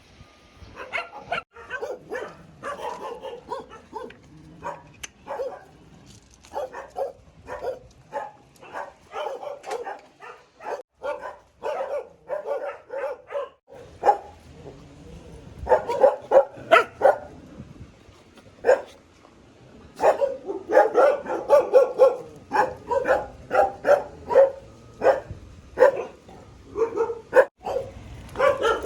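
Dogs barking over and over, in short barks several a second, growing louder and denser about halfway through and again toward the end.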